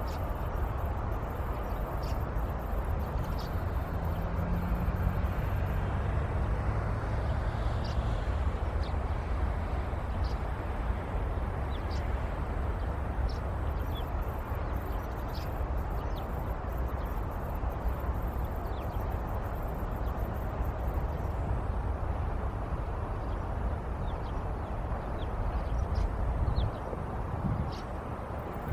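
Open-field ambience: a steady low rumble of wind and distant traffic, with short high bird calls scattered throughout.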